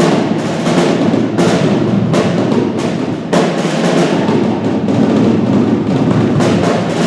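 Student percussion ensemble playing drums and other struck percussion in a dense, continuous rhythm.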